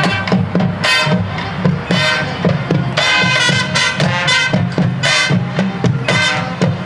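High school marching band playing: brass sounding held and moving chords over a steady drumline beat.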